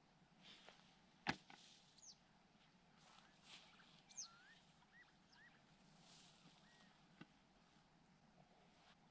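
Faint outdoor quiet with small birds chirping: short high calls that sweep downward, and several small rising notes. One sharp click about a second in is the loudest sound.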